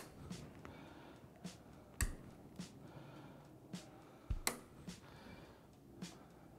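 Diagonal cutters snipping the tails off nylon zip ties: sharp snips a couple of seconds apart, the loudest about two seconds in and again about four and a half seconds in, with fainter clicks between.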